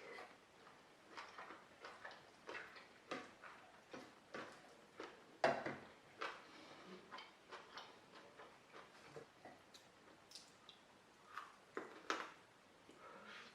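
Close-miked eating sounds: soft, irregular clicks and smacks of chewing a meal of rice, dal and fried pork, about one or two a second, with a sharper click about halfway through.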